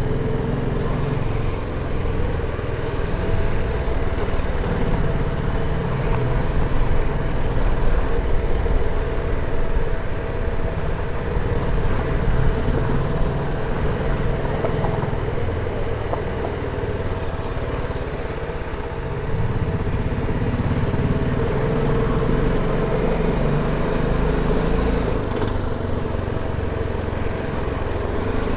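BMW G310GS motorcycle's 313 cc single-cylinder engine running at a steady pitch while being ridden, with a low rumble underneath.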